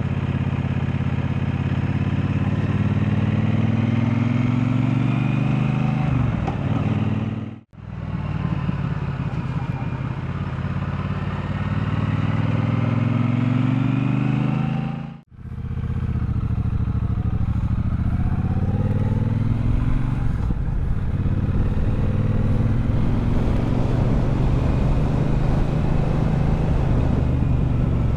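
Triumph Bobber's 1200 cc parallel-twin engine running as the motorcycle is ridden. The revs climb steadily in two long stretches, each of which cuts off abruptly, and a steadier run follows.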